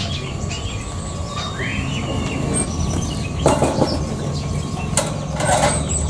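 Clicks and rattles of a wire birdcage being handled, over a steady low hum. A single rising-and-falling bird chirp comes about two seconds in.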